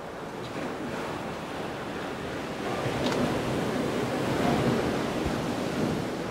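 Sea surf washing in, one wave swelling louder about halfway through and then easing off, with some wind on the microphone.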